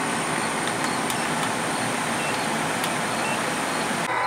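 Trane TUX080C942D2 92% AFUE gas furnace running in heat mode: a steady rushing noise from its burners and fans, with a few faint ticks.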